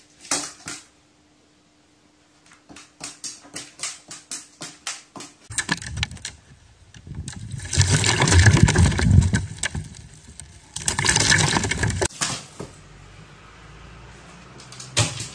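A crow bathing in a plastic basin of water: first a run of light taps, then two loud spells of splashing and churning water as it dips and flaps, about seven seconds in and again about eleven seconds in.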